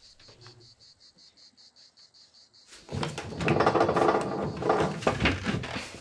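A faint, fast, high-pitched pulsing buzz, about nine pulses a second. About three seconds in it gives way to a loud clatter of wooden drawers and cupboard doors being yanked and rattled in a frantic search.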